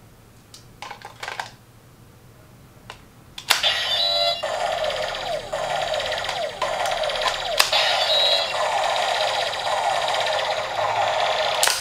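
CSM Double Driver ver. 1.5 (Kamen Rider W toy belt): a few light plastic clicks, then a loud click about three and a half seconds in starts the belt's electronic standby sound, a steady loop of falling chirps and beeps. It carries on to the end, with sharp clicks in the middle and near the end.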